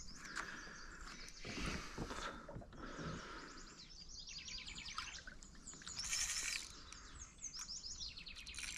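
Songbirds singing in quick trilled runs of short falling chirps, twice, over faint outdoor hiss, with a brief louder hiss about six seconds in.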